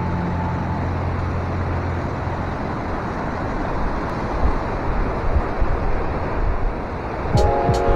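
Steady rush of water from a mountain stream, an even hiss with no pitch to it, with the tail of a music chord fading out in the first couple of seconds and music coming back in near the end.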